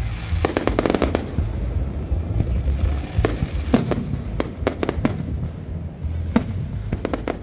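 Aerial firework shells bursting: a quick run of sharp cracks about half a second in, then scattered single bangs and a short cluster near the end, over a steady low rumble.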